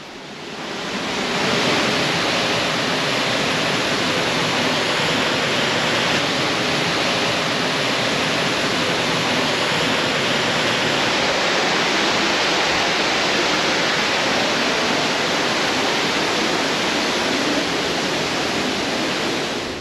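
Steady, even rush of a shallow, rocky river with water spilling over a low concrete weir. The sound fades in over the first second or two and stops shortly before the end.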